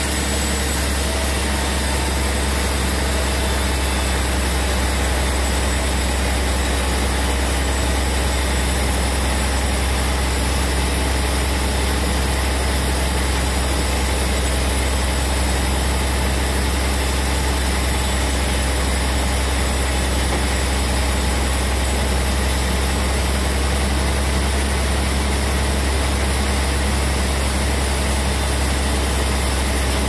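Large band sawmill running and cutting through a big teak log, a steady low hum of the machine under an even hiss of the blade in the wood, unbroken throughout.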